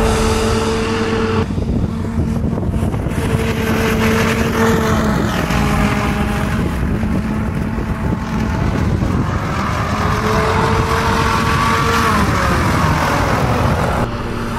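Small leisure hovercraft's engine and lift/thrust fan running hard and steady, with a rushing air noise; the engine's pitch slides down about twelve seconds in as it eases off.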